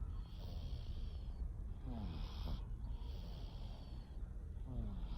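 Domestic cat snoring in its sleep, two slow breaths about three seconds apart. Each breath is a short snore that falls in pitch, followed by a longer hiss.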